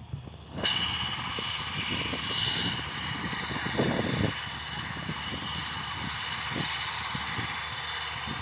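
ATR 72-600 turboprop engine running during its startup: a steady high whine over a low rumble. It grows suddenly louder about half a second in, with a brief louder rumble about four seconds in.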